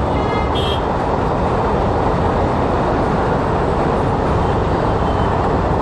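Steady rolling noise of a long rake of passenger coaches passing on the track. A short high-pitched tone sounds about half a second in.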